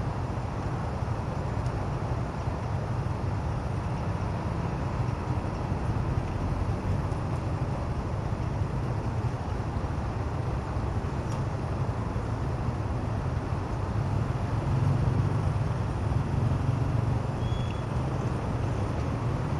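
Idling motorbike engines and passing city traffic: a steady low rumble that gets slightly louder about three-quarters of the way through.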